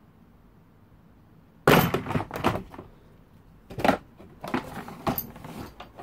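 VW T5 van's plastic interior trim and its clips being handled and pushed back onto the pillar: a sharp knock with a short rattle about two seconds in, another knock a couple of seconds later, then a run of small clicks.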